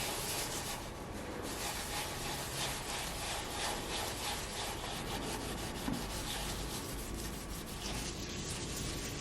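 Scrubbing copper with lemon and salt, in repeated gritty rubbing strokes that ease off briefly about a second in: the salt is scouring tarnish off the copper.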